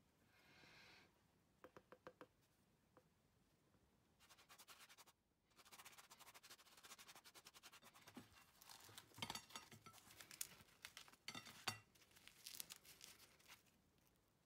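Faint scratching and crackling of freshly cooked naan bread being handled: a silicone pastry brush spread over its crisp, blistered surface, then the bread torn apart. The scratchy crackle comes in about four seconds in and is busiest a few seconds before the end, with small sharp clicks.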